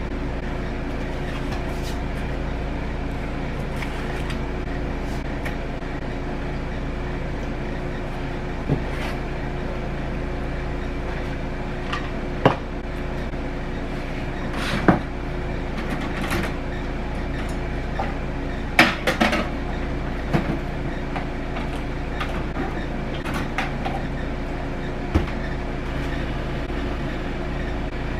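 Kitchen handling sounds: a handful of separate sharp knocks and clinks of kitchenware being picked up and set down, with a short cluster of them about two thirds of the way through, over a steady low appliance hum.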